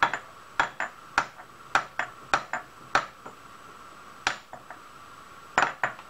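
Metal tapping on metal at a milling machine's workpiece and clamp: about fifteen short, ringing clinks, irregularly spaced, with a lull in the middle and a quick run of them near the end.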